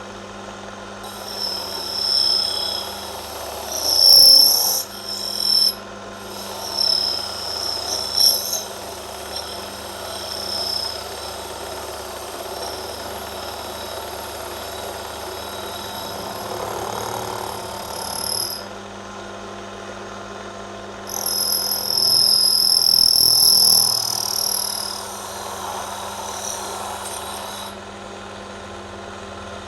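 Metal lathe running with a steady motor hum as the cutting tool faces off a brass disc. The cut gives a high-pitched squeal that comes and goes in long stretches, breaking off twice for a few seconds.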